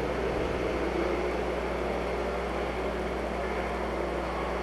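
Steady, muffled drone of dirt-track SportMod race cars running around the track, heard from inside the announcers' booth.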